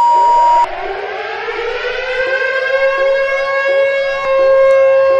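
A loud single-pitch beep of under a second, then an air-raid warning siren winding up in pitch and levelling off to a steady wail. Short rising sweeps repeat over it about every 0.7 s.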